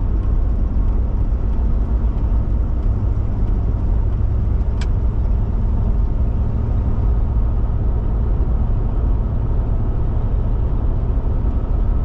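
Steady road and engine noise of a car cruising at highway speed, heard from inside the cabin as a low, even rumble. One brief faint tick about five seconds in.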